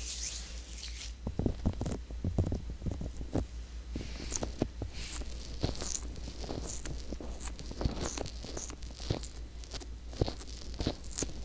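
Hands rubbing together briefly at the start, then fingertips rubbing and pressing directly on the silicone ear of a binaural microphone, giving close, dense crackling, scraping and tapping.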